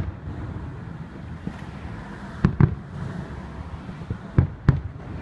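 Aerial fireworks shells bursting: a bang at the start, then a pair of sharp bangs about halfway and another pair near the end, each followed by a short echoing rumble.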